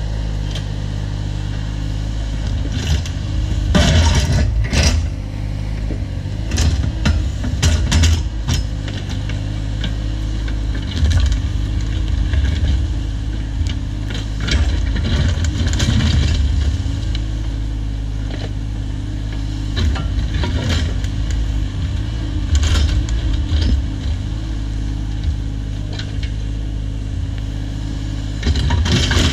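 Cat 304 mini excavator's diesel engine running steadily under load, with frequent sharp cracks and knocks from the bucket working through brush and rock.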